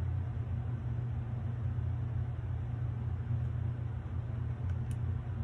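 A steady low hum, with one faint short tick near the end.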